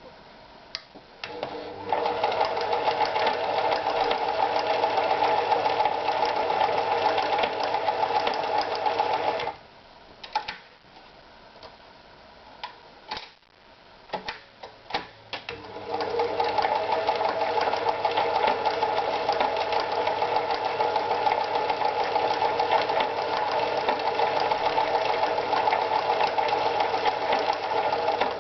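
Privileg Super Automatik TopStar 796 sewing machine running steadily for about seven seconds, then stopping. A few scattered clicks and knocks follow before it runs again steadily for about twelve seconds.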